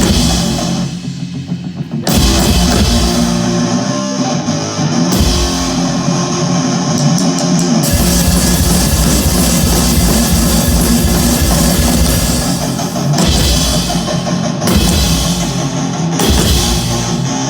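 Live heavy rock band playing loud, with drums and electric guitar and no singing. After a short opening the full band crashes in about two seconds in, and the low end cuts in and out several times in a stop-start riff.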